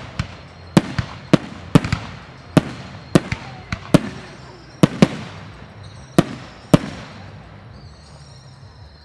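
Aerial firework shells bursting in a rapid, irregular series of sharp bangs, each followed by a rolling echo. The bangs stop about seven seconds in.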